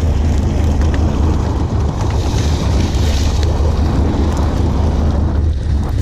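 Sportfishing boat's engine running with a steady low drone, under a wash of water and wind buffeting the microphone.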